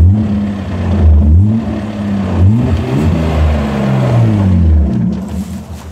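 A 1994 BMW E36 320i's M50 two-litre straight-six is revved several times, its pitch climbing and falling back with each press of the accelerator.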